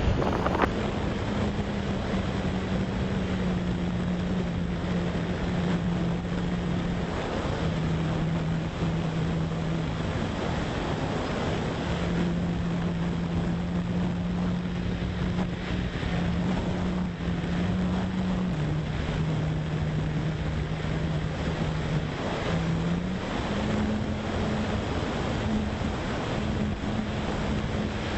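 Electric motor and propeller of a radio-controlled model airplane in flight: a steady drone whose pitch steps down and back up several times as the throttle changes, over wind noise on the microphone.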